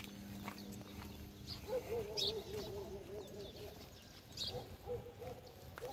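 Birds calling: a low, wavering coo lasting about two seconds, starting near two seconds in, with a fainter repeat later and a few short high chirps.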